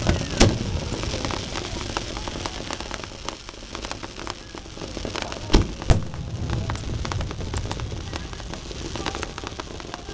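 Fireworks finale: aerial shells bursting with sharp booms, one just after the start and two close together about halfway, over continuous dense crackling.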